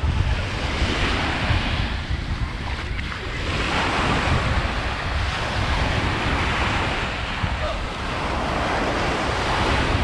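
Small waves breaking and washing up the sand at the water's edge, swelling and easing in surges, a longer surge starting about a third of the way in. Wind rumbles on the microphone underneath.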